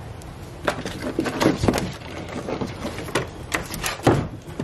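Irregular knocks and clatter of hard objects being handled and set down, with a heavier thump about four seconds in.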